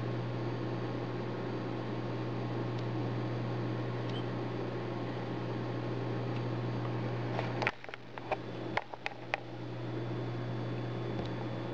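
Steady low hum and hiss from the recording. About eight seconds in it briefly drops away under a quick run of five or six sharp clicks and knocks, typical of the camera being handled.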